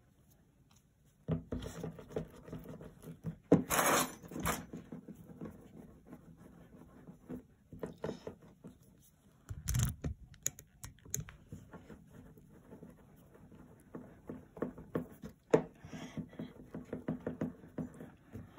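Hands rolling plasticine clay into a coil on a hard tabletop: irregular soft rubbing and scratching with small clicks, starting about a second in, and a few louder knocks.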